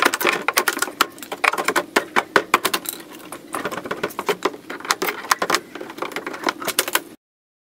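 Plywood shipping crate being pulled and broken apart by hand: a rapid, irregular run of cracks, creaks and clicks that cuts off suddenly near the end.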